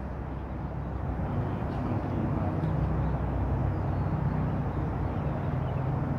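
Steady outdoor background rumble, strongest low down, with no distinct event in it.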